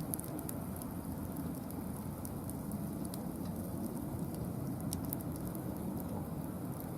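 Wood fire of mixed hardwood burning in a fire pit stand: scattered sharp crackles and pops over a steady low noise.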